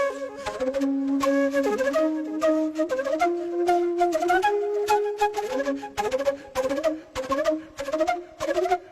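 Flute music: a melody of held notes at first, then quicker short notes stepping and sliding up and down.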